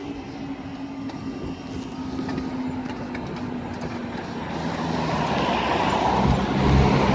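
Road traffic moving over the level crossing: a steady engine hum fades early on, then a vehicle's engine and tyre noise grow louder over the last couple of seconds.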